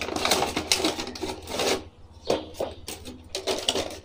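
Cardboard toy box and its clear plastic blister tray being opened by hand: rustling, crackling plastic with quick scrapes and clicks, easing off briefly about two seconds in.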